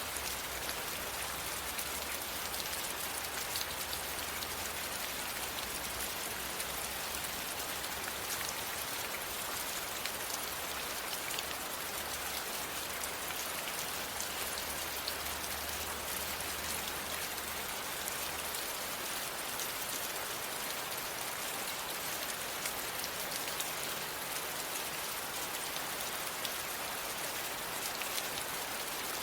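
Steady, even rain falling, a continuous hiss of rainfall with individual drops ticking through it.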